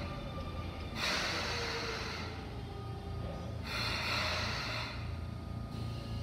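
Sotetsu 8000-series electric train braking to a stop at a platform: a steady low rumble under a motor whine that falls in pitch over the first few seconds, with two short bursts of air hissing from the brakes about a second in and near four seconds in.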